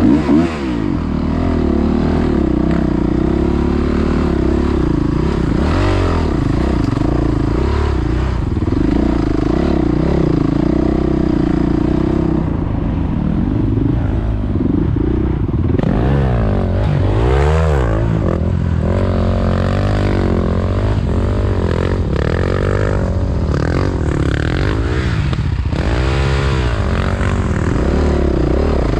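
Dirt bike engine running under the rider, its pitch rising and falling repeatedly as the throttle is worked over rough trail, with sharper rev swings in the second half.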